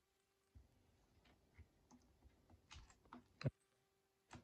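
Faint, scattered clicks and taps of small brass and steel parts being handled on a Hermle triple-chime clock movement, with a sharper click about three and a half seconds in and another near the end.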